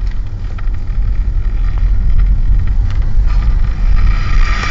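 Car running, a steady heavy low rumble of engine and road noise, with a higher rushing hiss rising about three seconds in.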